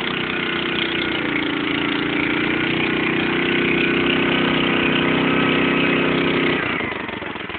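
Engine of a Val Padana 10 hp walk-behind tiller running steadily at a fast, even speed. Near the end the engine note drops away and gets quieter.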